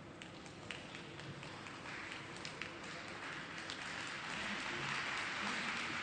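Applause from a small audience: a few separate claps at first, thickening into steady clapping from about two seconds in.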